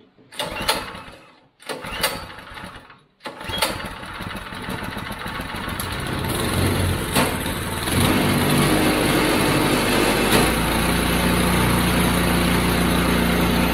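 Small single-cylinder go-kart engine being pull-started from cold on choke: two short bursts of cranking, then it catches about three seconds in and keeps running, getting louder and settling into a steady run from about eight seconds in.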